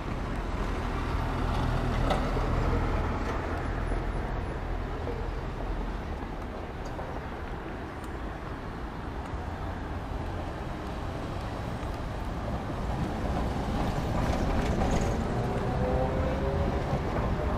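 City street traffic: cars and a trolleybus passing through a busy roundabout, a steady low rumble of engines and tyres. Near the end a faint rising whine comes in over it.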